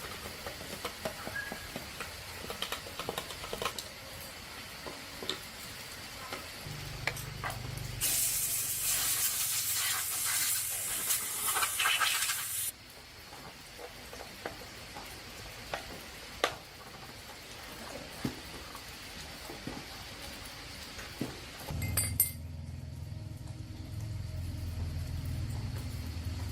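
A loud hiss lasting about four and a half seconds, starting about eight seconds in and cutting off abruptly, among scattered light clinks and knocks of metal.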